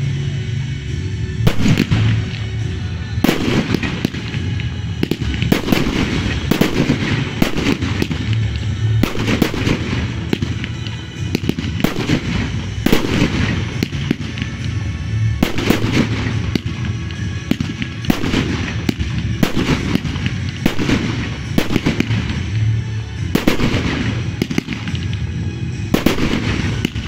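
Aerial firework shells bursting one after another, a continuous run of sharp bangs at roughly one or more a second.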